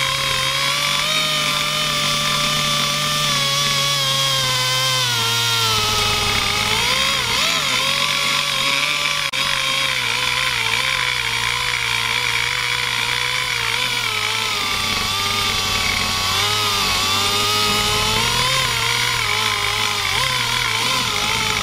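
Die grinder rough-cutting inside the exhaust port of a Vortec cast-iron cylinder head: a steady high whine whose pitch sags and wavers as the bit is pushed into the metal and eased off.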